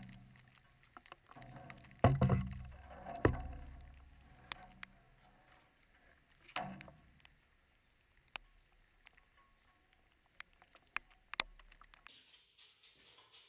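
Gear being handled and knocked against a hard surface under a spray of water: scattered clicks and taps, with a few heavy thumps that ring low briefly, the loudest about two and three seconds in.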